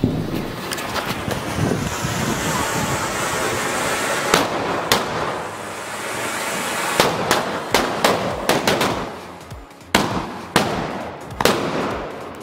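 A lit string of 'Deluxe' firecrackers (a ladi) going off: a dense fizzing crackle at first, then from about four seconds in a run of sharp, loud, irregular bangs as the larger crackers in the string explode.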